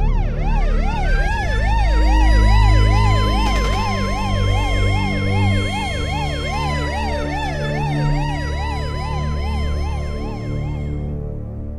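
Emergency vehicle siren: a fast yelp sweeping up and down about three times a second, layered over a steady wailing tone that rises at the start and dips briefly about two-thirds of the way through, with a low rumble beneath. It fades out near the end.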